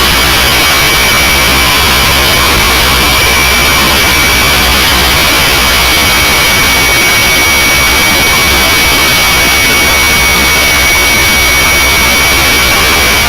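Hirobo SRB radio-controlled helicopter heard from its onboard camera: a loud, steady rushing noise with a constant high whine from the drive and rotors.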